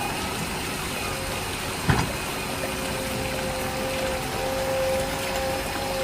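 Small water pump running steadily, with water moving and a faint on-and-off tone; a single sharp knock about two seconds in.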